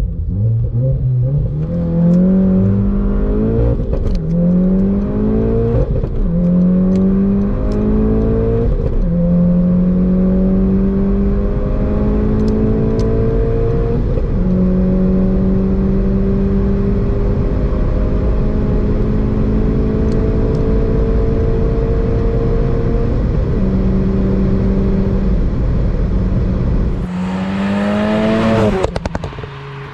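Tuned Audi S1 Sportback's 2.0 TFSI turbocharged four-cylinder at full throttle from a standstill. The engine pitch climbs through each gear with a short break at every gear change, and each gear lasts longer as speed rises past 180 km/h. Near the end, the car is heard from outside accelerating past, its engine pitch rising before the sound drops away.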